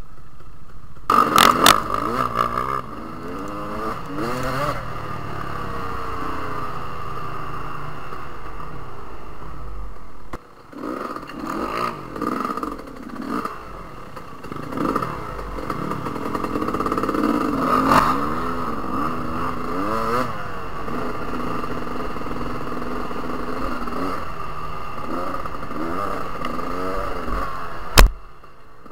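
Dirt bike engines revving, the pitch rising and falling again and again as the throttle is blipped, with one sharp knock near the end.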